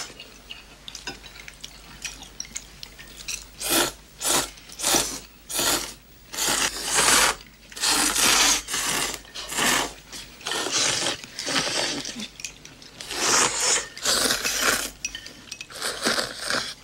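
Several people slurping food loudly from bowls held up to their mouths, a string of noisy slurps one after another starting about three seconds in, with faint clinks of chopsticks and dishes.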